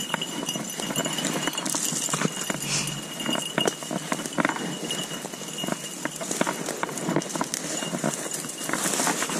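Footsteps crunching through dry brush and grass: an irregular run of short, sharp crunches.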